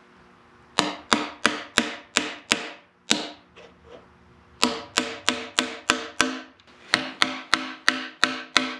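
Ball-peen hammer striking a metal seal driver to drive an axle seal into the end of a Toyota rear axle housing: quick ringing metal taps, about four a second, in three runs with short pauses between.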